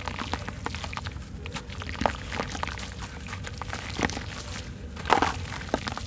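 Dry sand-cement block being crumbled by hand over a basin of water: a run of gritty crackles as crumbs and powder break off and drop into the water, with louder crunches about two, four and five seconds in.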